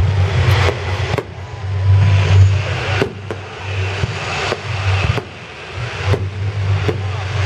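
Fireworks salute: shells bursting in a rapid string of sharp bangs, about one or two a second, over a steady low rumble.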